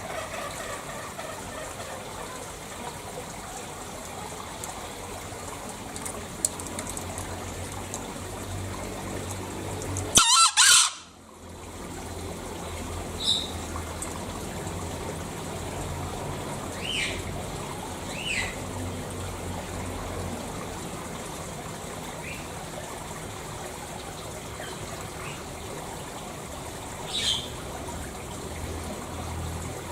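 Green junglefowl crowing: one loud, shrill crow about ten seconds in, over a steady hiss. A few short, sharp high-pitched calls follow scattered through the rest.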